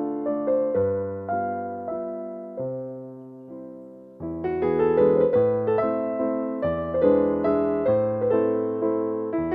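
Background piano music: single notes and chords struck and left to fade, thinning to a quiet stretch about a third of the way in before fuller playing returns.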